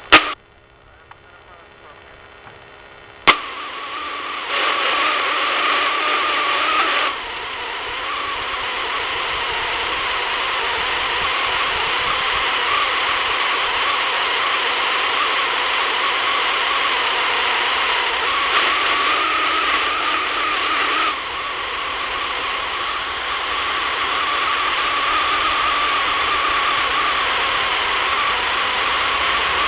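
Airband radio receiver hissing with static: a loud squelch click at the very start and another about three seconds in, then a steady rushing hiss that steps abruptly louder and quieter a few times.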